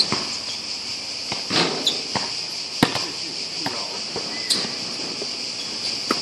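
A steady high-pitched insect chorus, with a basketball bouncing on an outdoor hard court: about five sharp knocks spread through, the loudest a little before halfway.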